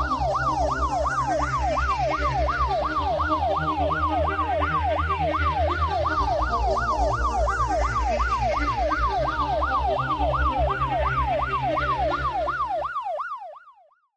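Electronic ambulance siren in its fast yelp pattern, the pitch sweeping up and down about three times a second over a low steady drone, fading out near the end.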